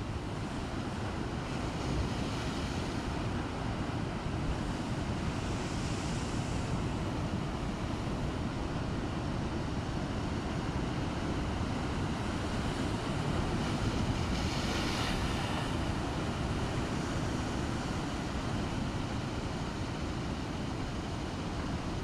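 Rough sea: waves surging and breaking with wind rumbling on the microphone, and three louder hissing washes of water about two, six and fifteen seconds in.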